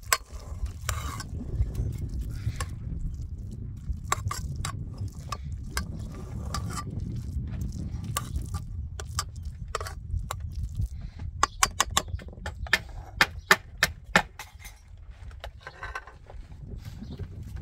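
Perforated metal skimmer scraping and clinking against a metal pot while cooked rice is scooped from one pot into another. A quick run of sharp taps comes a little past the middle.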